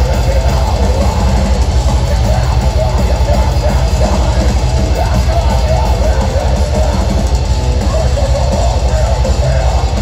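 Metalcore band playing live and loud: distorted electric guitars, bass and rapid, driving kick drum, with the vocalist singing into the mic. Recorded by a phone in the crowd, close to the PA.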